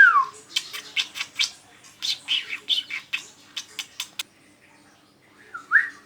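Indian ringneck parrot chattering: a quick run of short, harsh squawks and clicks, then a pause and a short rising whistle near the end.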